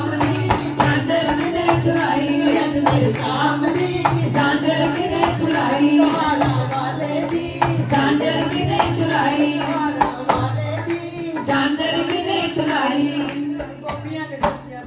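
Women singing a Punjabi devotional bhajan to Krishna into microphones, with the seated group clapping along to a steady beat.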